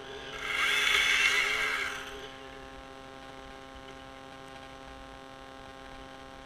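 Pine top breaking off under the chainsaw and dropping through the branches: a loud rushing burst of about a second and a half, with the saw's pitch falling away near its end. Then the two-stroke chainsaw idles with a steady hum.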